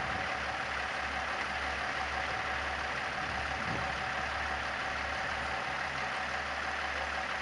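Crane truck engine running steadily, with a steady high whine over the low hum.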